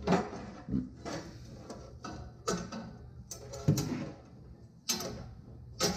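Lengths of 5/16 steel round bar knocking and clinking against a metal workbench as they are handled, about eight separate sharp metallic knocks, each with a short ring, over a low steady hum.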